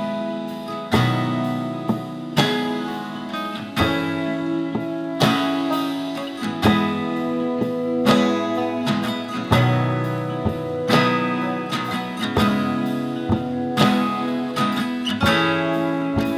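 Background music led by a strummed acoustic guitar, with a new chord struck about once a second.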